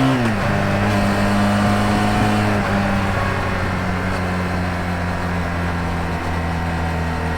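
Honda VF1000R V4 motorcycle engine running under way. Its note falls sharply just after the start, then holds steady and steps a little lower twice.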